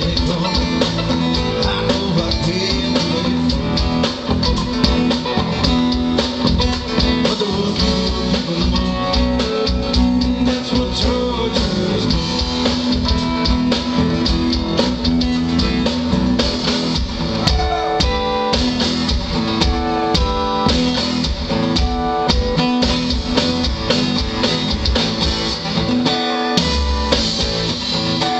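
Live rock band playing through a PA: electric guitars over a steady drum-kit beat.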